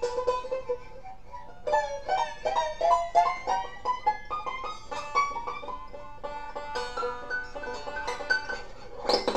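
Resonator banjo played with a slide: a busy run of plucked notes, many of them sliding up in pitch, with a sharp louder burst near the end.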